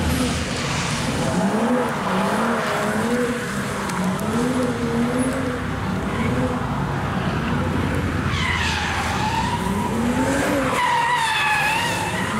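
Car engine revving up and falling back again and again as the car drifts around a roundabout. From about eight seconds in, the tyres squeal with a high tone that wavers in pitch.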